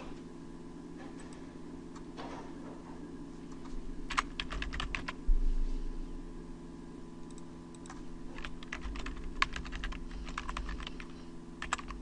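Typing on a computer keyboard, in a burst of keystrokes about four seconds in and a longer run from about eight seconds, over a steady low hum. A single thump about five seconds in is the loudest sound.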